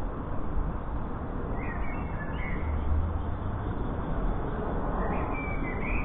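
Jackdaws giving short calls in two brief bunches, about two seconds in and again near the end, over a steady low rumble.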